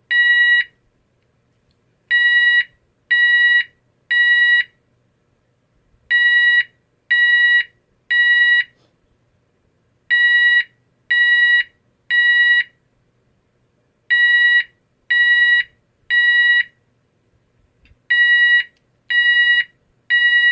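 GE AS363 alarm sounder playing its 970 Hz temporal-3 tone (ISO 8201 low frequency): three beeps of about half a second each, then a pause, the pattern repeating about every four seconds. This is the standard temporal-3 evacuation signal.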